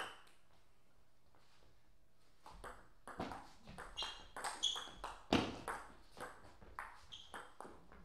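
Table tennis rally: the ball clicking off the rackets and pinging as it bounces on the table, a single bounce at the start, then a quick run of hits from about two and a half seconds in, with one heavier thump midway.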